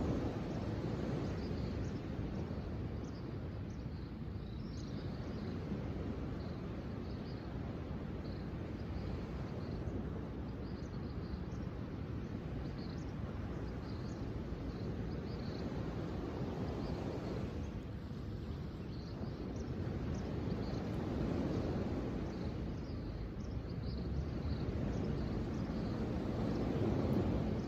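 Ocean waves washing in, a steady rush that swells and eases every several seconds, with short high bird chirps scattered throughout.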